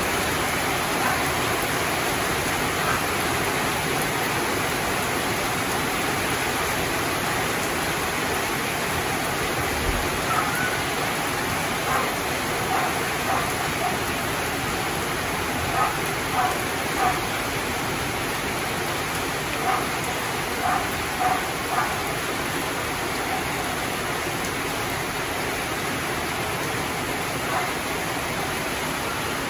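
Heavy rain pouring down steadily. A dog barks faintly over it now and then, in short clusters of barks.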